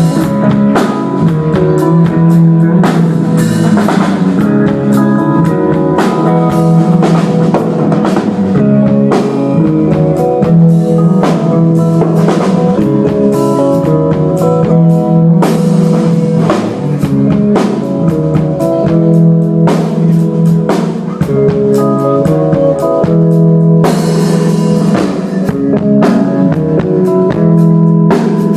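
Band playing an instrumental passage of a song, with no vocals: guitar over a drum kit keeping a steady beat.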